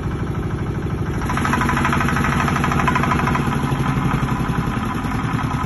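Single-cylinder diesel generator running steadily with an even, rapid pulsing beat inside its soundproof acoustic enclosure. About a second in the enclosure door is opened and the engine becomes louder and brighter.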